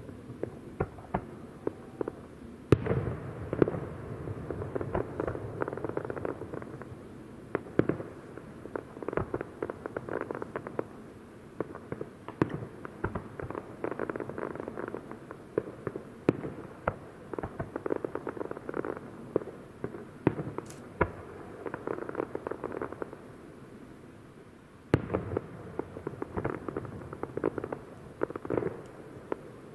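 Aerial fireworks display: shells bursting amid dense, irregular crackling, with heavier bangs about three seconds in and again near the end.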